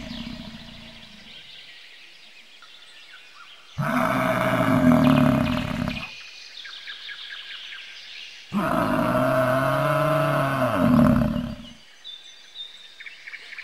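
American bison bellowing: two long, deep bellows of two to three seconds each, starting suddenly about four seconds in and again about eight and a half seconds in, the second one bending in pitch. The tail of an earlier bellow fades out in the first second or so.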